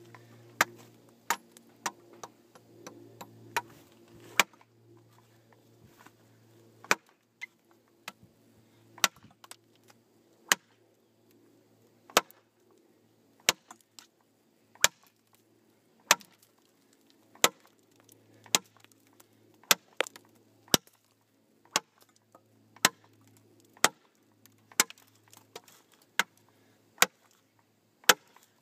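Large camp knife with a 13-inch ATS-34 steel blade chopping into a heavy piece of wood: a steady run of sharp chops about one a second, with a pause of about two seconds after the first half-dozen strikes.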